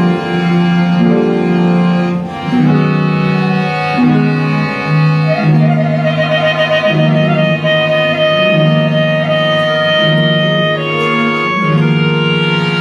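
Live acoustic quartet playing: clarinet, bowed double bass, accordion and a small plucked string instrument, in sustained notes that change about once a second, with a wavering higher line a little past the middle.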